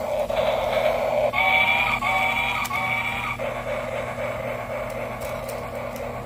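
Battery-powered toy steam locomotive running on plastic track with a steady whirring rumble. Its sound unit gives three short electronic toots in a row, starting a little over a second in.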